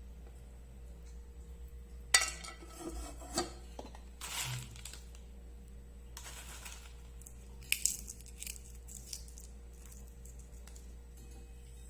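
Kitchen dishes and utensils being handled: a few scattered clinks and short rustles at irregular moments over a faint steady hum.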